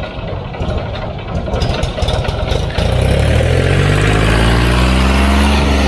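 Mahindra tractor's diesel engine running with a rough clatter, then revving up about three seconds in, its pitch climbing steadily.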